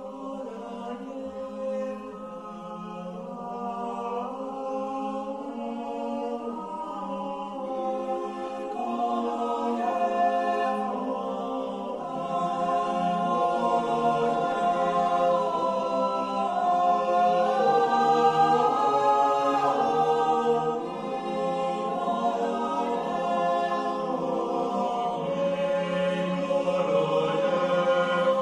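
A choir singing a slow piece in long, held notes, swelling louder through the first half.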